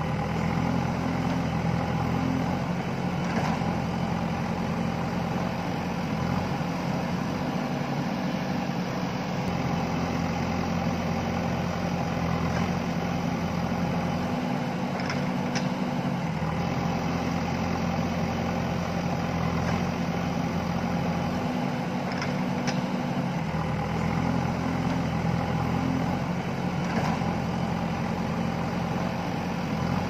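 JCB backhoe loader's diesel engine running steadily as the machine works on the slope, its note shifting a few times, with a few faint knocks.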